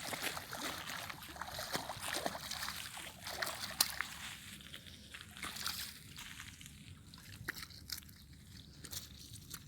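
Water sloshing and splashing with irregular small clicks and crackles, busier in the first half and thinning out after about five seconds.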